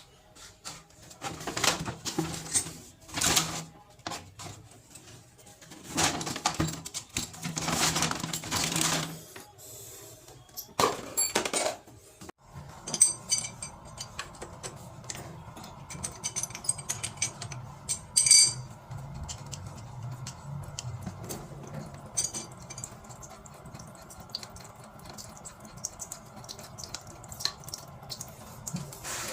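Metal plumbing parts and tools clinking and clattering as they are handled, with a few louder scraping or rustling swells in the first nine seconds and a steady low hum under the later clicks.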